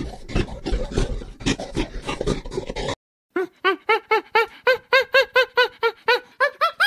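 An irregular clatter of clicks and scuffling noise, then, after a cut about three seconds in, an animal calling in a fast run of short pitched cries that each rise and fall, about five a second.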